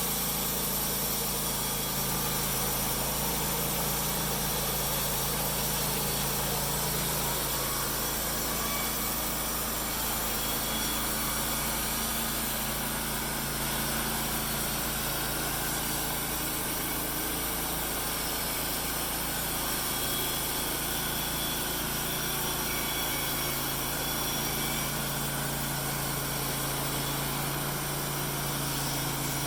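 Small engine running steadily at an even speed, with no change in load.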